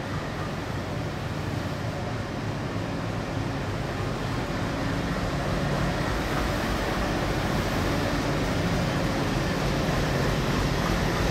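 ALCO-engined WDG-3A diesel locomotive running as it moves past close by at slow speed, a steady engine hum that grows louder from about six seconds in as the locomotive draws level.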